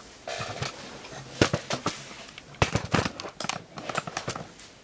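A taped cardboard parcel being handled and set down on a bed: a run of sharp knocks, taps and crackles of cardboard and packing tape.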